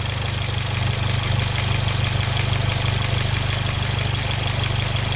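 2011 Hyundai Genesis Coupe 2.0T's turbocharged four-cylinder engine idling steadily with a light, rapid, even ticking. The owner takes the tick for the valves, normal rather than a sign of anything broken.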